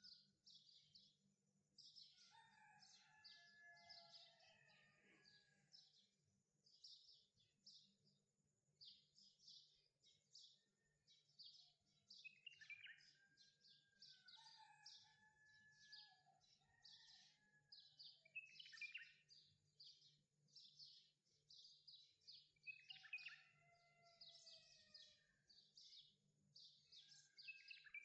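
Faint birdsong: rapid high chirps and trills with whistled notes gliding down, the same kind of phrase coming back about every ten seconds, over a faint steady low hum.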